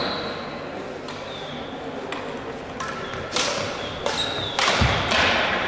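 Crossminton rackets striking the speeder in a rally: several sharp cracks from about two seconds in, each ringing briefly in the hall. Short sneaker squeaks on the wooden court floor and a low thud of a footfall near the end.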